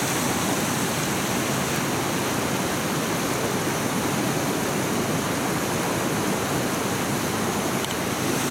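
Fast, icy mountain river rushing over rocks and boulders: a steady, even rush of water.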